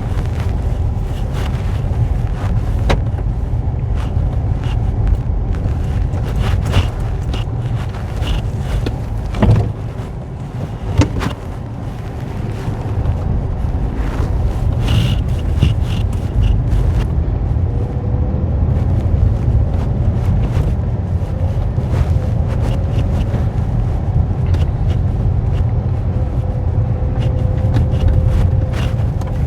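Peugeot 5008 on the move, with a steady low rumble of road and running noise, a few knocks and clicks along the way (two sharper ones around nine to eleven seconds in), and a faint tone slowly rising in pitch over the second half as the car picks up speed.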